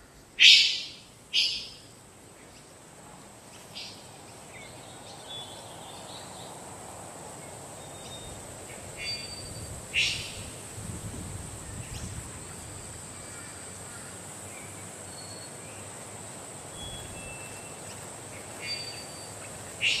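Three-wattled bellbird calling: short, loud, sharp notes, two close together in the first two seconds, another about halfway and one at the end, with fainter short whistled notes between. A steady high thin whine runs underneath.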